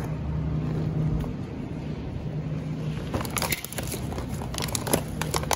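Plastic grocery packaging crinkling and clicking as a clamshell of salad greens is handled and set into a shopping cart, with a few sharp crackles in two clusters in the second half, over a steady low hum.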